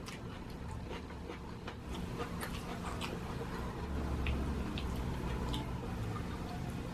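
Close-miked chewing and eating: a low, steady mouth-and-jaw rumble with scattered sharp wet clicks and crunches, several a second at times.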